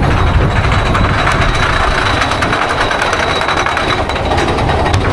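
Big Thunder Mountain Railroad mine-train roller coaster running along its track: a steady rumble with rapid fine clatter from the wheels and rails, and a thin steady high tone from about half a second in.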